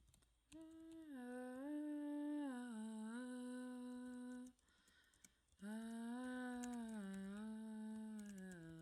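A woman humming a slow, gentle melody in two long phrases, with a short pause about halfway through. Faint keyboard typing clicks can be heard at the very start.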